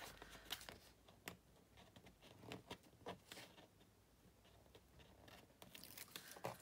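Faint rustling and light taps of cardstock and ribbon being handled and shifted on a plastic scoring board, with a scattered handful of small clicks.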